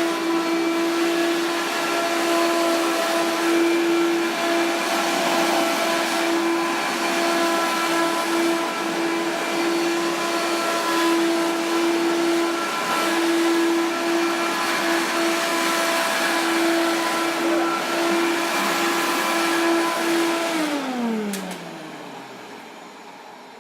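Hoover Power Max vacuum cleaner running with a steady motor hum. About twenty seconds in it is switched off and the motor winds down, its pitch falling as it slows, with a couple of faint clicks near the end.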